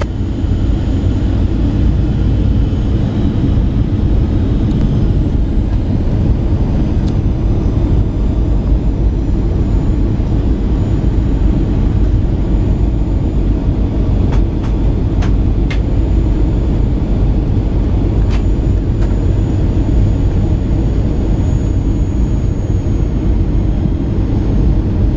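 Steady low rumble of engine and airflow noise inside a jet airliner's cabin during its descent to land, with a few faint clicks about halfway through.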